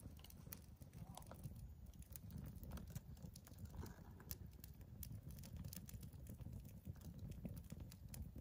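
Freshly lit kindling fire crackling faintly: scattered small snaps and pops from burning split wood, over a low steady rumble.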